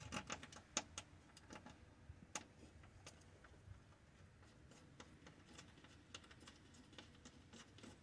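Faint, irregular light clicks and taps from hand work with screws and fittings on a car door: a quick cluster in the first second, then scattered single ticks.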